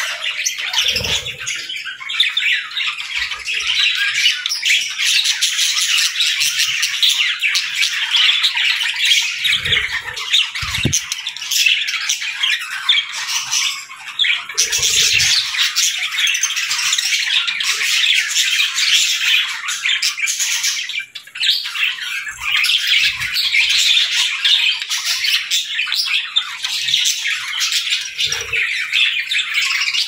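A flock of budgerigars chattering, chirping and squawking all at once in a dense, unbroken din, with a few soft low thumps now and then.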